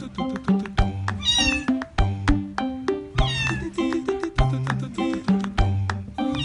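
Upbeat instrumental music with a plucked melody over a bouncing bass line, and a cat meowing twice over it, about a second in and again about three seconds in, each meow short, high and falling.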